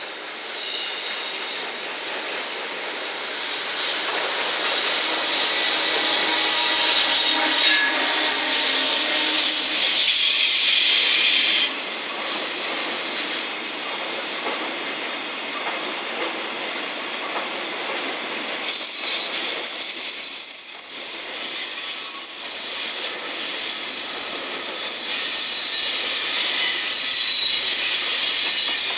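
A JR Freight EF210 electric locomotive hauling a long container freight train: it grows louder as it approaches and drops off sharply about twelve seconds in as it passes. The container wagons then roll by with steady wheel-on-rail noise and a thin high squeal near the end.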